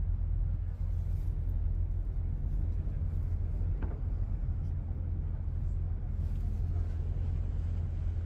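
Steady low rumble of a boat's engine as it motors slowly through the harbour.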